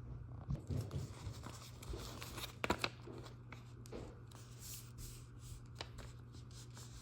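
A sheet of paper being folded and creased by hand: soft, scattered rustles and a few sharper crinkles, the loudest a little under three seconds in.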